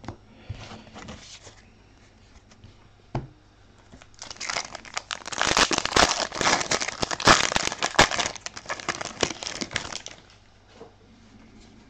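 Plastic wrapper of a 2020 Panini Prizm trading-card pack being torn open and crinkled: a dense crackling rustle that starts about four seconds in and lasts about six seconds.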